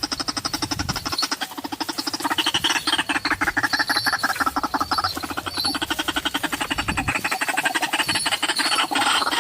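White-breasted waterhen calling: a fast, unbroken run of croaking pulses, about ten a second, whose pitch rises and falls.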